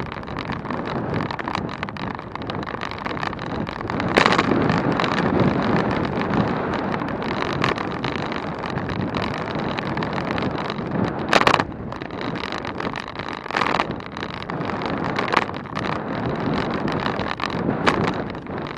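Wind buffeting the microphone on a bicycle ride at speed, a steady rushing noise with a few sharper gusts.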